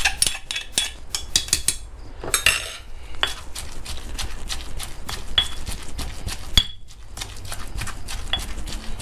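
Stone pestle pounding shrimp paste, shallots and lemongrass in a granite mortar: irregular clicks and dull knocks of stone on stone. In the first couple of seconds a metal spoon clinks against the mortar, and one sharper knock comes about two-thirds of the way through.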